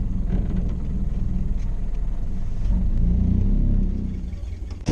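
Model A Ford's Burtz four-cylinder engine running at low speed during a parallel-parking manoeuvre. The note swells about three seconds in, then eases off, and a single sharp click sounds at the very end.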